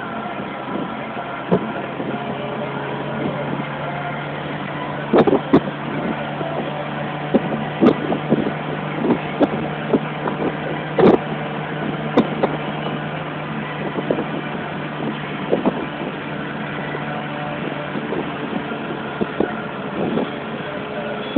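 Ferrari's engine running at a steady pitch as the car cruises, heard from inside the cabin over road and wind noise. Short sharp thumps come at irregular moments throughout.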